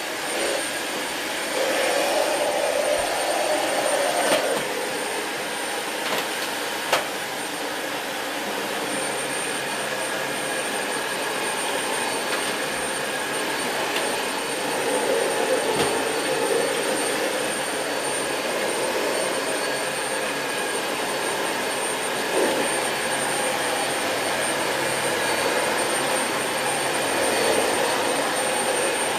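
Dyson Light Ball Multi Floor upright bagless vacuum cleaner running steadily over carpet with a high whine, its sound swelling and easing a few times. Two sharp clicks come within the first seven seconds.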